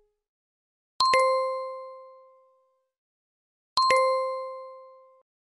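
imo messenger notification chime: a bright bell-like ding sounded twice, a little under three seconds apart. Each ding has a quick double attack and then rings out, fading over about a second and a half.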